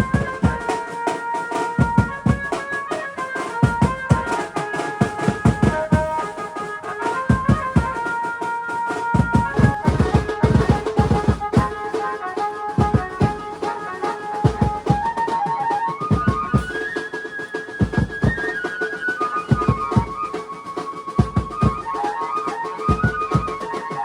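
Garba dance music: a keyboard melody in held, stepping notes over a rhythmic drum beat.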